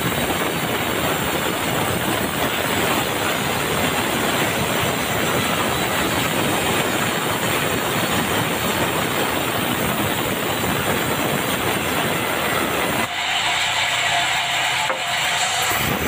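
Sawmill band saw cutting a board of dry bengkirai (yellow balau) hardwood: a steady, loud rasping run of blade through wood over the machine's drive. About 13 seconds in, the deeper part of the sound drops away for a few seconds, leaving a higher hiss, then comes back.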